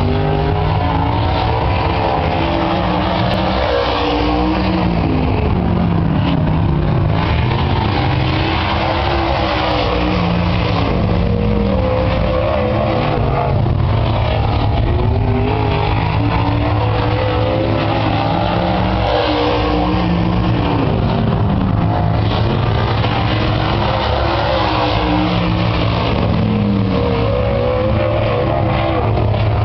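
A dirt late model race car's V8 engine running hard at speed on a dirt oval. The engine note climbs on each straight and drops off going into the turns, over and over.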